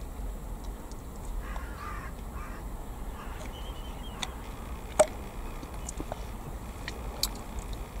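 A crow cawing, a few harsh calls about one and a half to two and a half seconds in, over a steady low outdoor rumble. A sharp click about five seconds in is the loudest sound.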